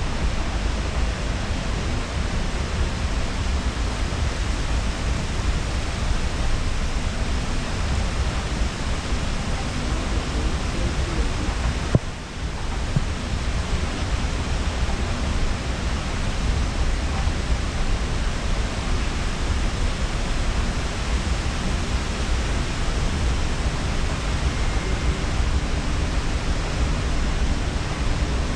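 Steady rushing noise with a deep rumble, heard while riding a long escalator in a large airport terminal hall: escalator running and hall air handling blended together. There is a single click about twelve seconds in.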